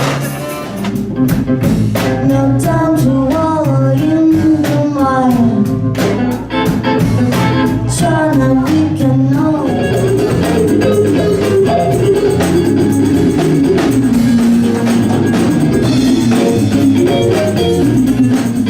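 Background music: a song with a sung or lead melody over a bass line and a steady beat of percussion.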